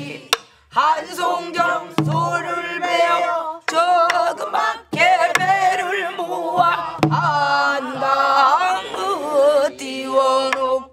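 A group of men and women singing a Korean Namdo folk song together in a wavering, ornamented style. A few sharp strokes on a buk barrel drum keep the beat.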